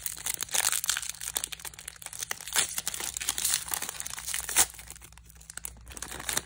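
Foil wrapper of a Panini Contenders trading-card pack crinkling and tearing as it is ripped open by hand, with one sharp, loud rip a little past halfway, then quieter crinkling near the end.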